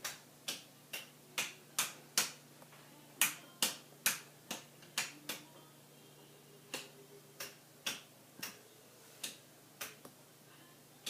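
Fire alarm strobe lights flashing, each flash a sharp click, about two clicks a second in an uneven pattern with a couple of short pauses.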